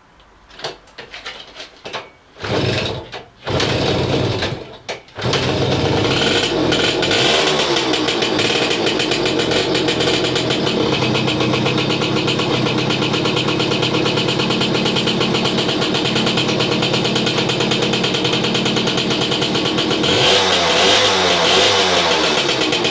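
Jawa 20 moped's small single-cylinder two-stroke engine being started: it fires in a few short bursts that die away, then catches about five seconds in and runs steadily at idle. Near the end it is revved up briefly.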